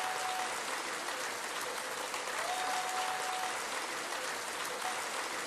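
Audience applauding steadily after a song ends, with a faint held tone sounding briefly twice.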